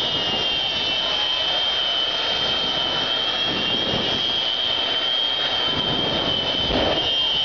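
Jet semi truck's jet engine running with a loud, steady high whine over a rushing roar, with deeper whooshes swelling near the end as it throws flames.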